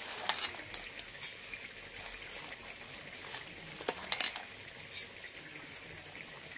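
Light clinks and taps of a spoon against a kitchen container, scattered through, as fried onions are put into water with ground ginger before grinding.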